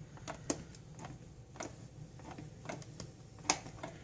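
A scattered series of light plastic clicks and taps as the brew button of a single-serve pod coffee maker is pressed and released several times, the sharpest click about three and a half seconds in. The button springs back up instead of staying down: it is a momentary button that starts brewing with a single press.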